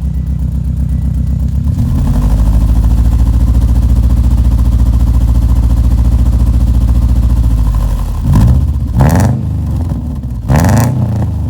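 Subaru Impreza 2.5i flat-four running through unequal-length headers and a catless downpipe, with the uneven boxer rumble. It idles, is held at a higher steady speed from about two seconds in, drops back, and is then blipped sharply a few times near the end.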